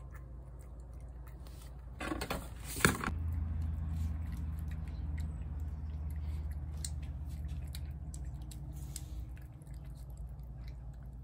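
A feral tabby cat eating wet food from a plate, with small wet chewing and licking clicks throughout. A loud clattering knock comes about two to three seconds in, followed by a steady low hum that stops near the end.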